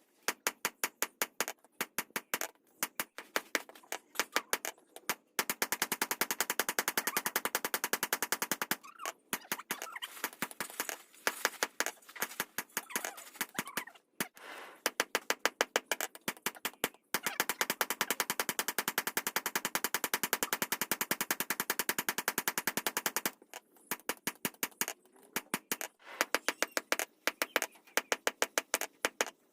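Rapid, even hammer strikes, about ten a second, in long runs broken by short pauses.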